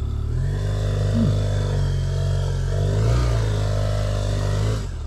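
Motorcycle engine revving and held at high revs under heavy load as the loaded bike climbs a steep sandy bank, with a brief dip about three seconds in and a drop in revs near the end.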